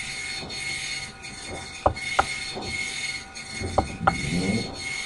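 Computer mouse button clicking twice as a press and release pair each time, about a third of a second apart, against a faint steady high whine.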